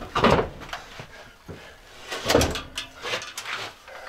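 A heavy battery being slid and pushed into a metal battery rack: a few knocks and scrapes, the loudest about two and a half seconds in.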